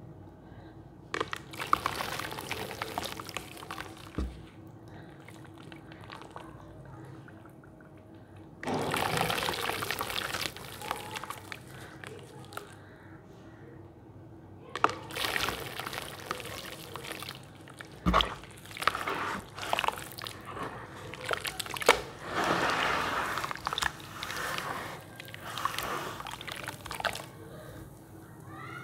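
Dry sand poured and dropped into a plastic basin of muddy water, splashing and sloshing in several bursts of a few seconds each, with two dull thumps.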